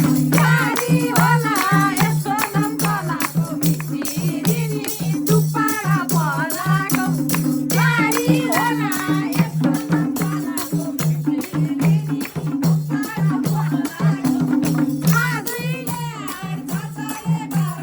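Nepali dohori folk music between sung verses: a wavering melody line over a steady beat with rattling percussion and alternating low bass notes.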